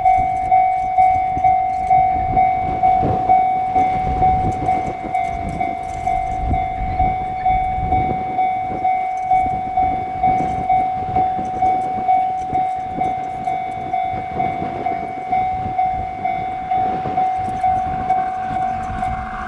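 Level-crossing alarm ringing about twice a second, steady in pitch, while an E6 series Shinkansen train rumbles past over the crossing with its wheels clattering. The train noise is heaviest in the first half and eases off toward the end.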